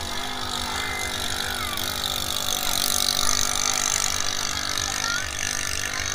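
Engine of a racing drag boat running at high revs, a buzzing motor noise that swells loudest about halfway through.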